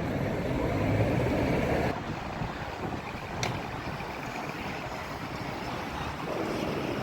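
Street traffic noise, a vehicle passing loudest in the first two seconds and then fading to a steady hum, with one short click midway.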